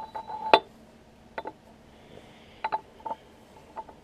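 Steel clamp clinking and knocking against the jaws of a Kurt milling vise as it is set in place. The clinks are sharp and metallic with a short ring, the loudest about half a second in, then four or five lighter knocks.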